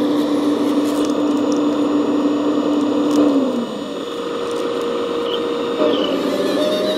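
Radio-controlled CAT 374D model excavator running: a steady mechanical whine over a hiss. The whine drops in pitch a little past the middle and steps back up near the end.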